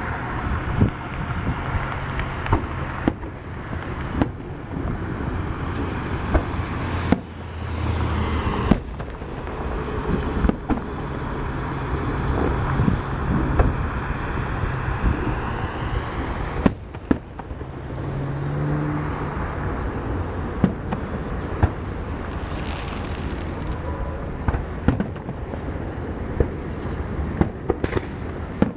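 Fireworks display going off: a continuous rumble and crackle with many sharp bangs scattered throughout.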